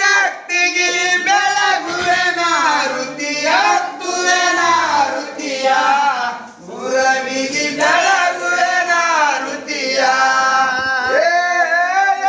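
A group of voices singing a Kannada devotional aarti song together in long, rising and falling phrases.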